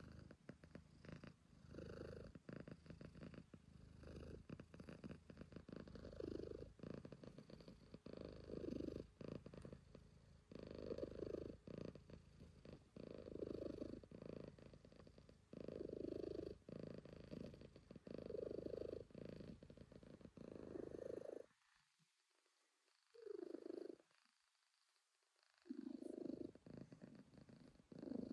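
Calico cat purring close up, swelling and fading with each breath about every two and a half seconds; the purring stops for a few seconds near the end, then starts again.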